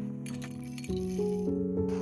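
Background music of held notes that change pitch every second or so, with a few light clinks near the start.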